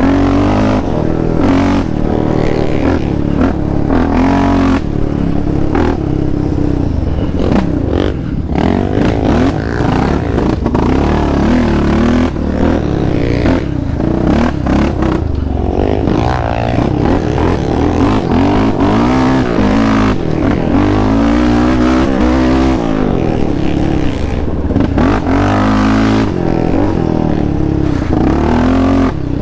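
Yamaha Raptor 700 sport ATV's single-cylinder four-stroke engine running hard on a dirt trail, its revs rising and falling over and over with the throttle. Clatter and scraping from the quad over the rough trail come through underneath.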